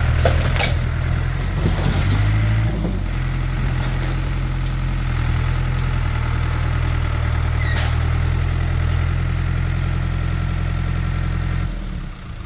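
Case International Harvester farm tractor engine idling steadily, its note shifting briefly about two to three seconds in, with a few short high-pitched squeaks over it. The engine sound falls away near the end.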